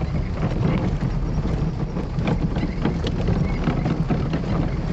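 Steady low rumble of a car on the road, heard from inside the cabin, with scattered small knocks and rattles.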